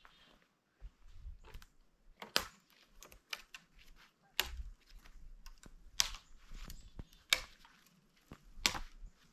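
A series of sharp cracks or knocks, about five loud ones roughly a second and a half apart, with lighter clicks between. They come from a person working by hand at ground level on the forest floor.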